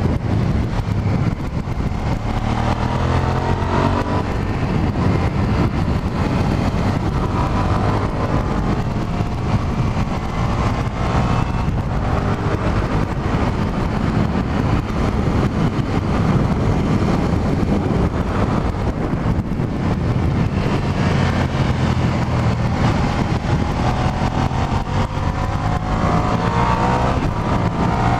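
Stock 2003 Suzuki SV650S's 645 cc V-twin engine under hard riding, rising in pitch several times as it accelerates out of corners, heard from inside the rider's helmet.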